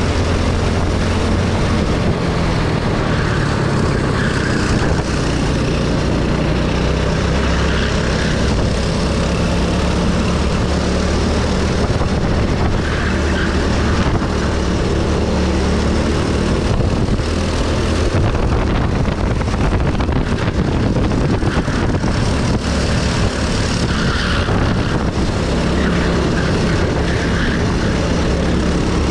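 Go-kart's single-cylinder engine running hard, heard from on board, its pitch rising and falling as the kart speeds up on the straights and slows for the corners.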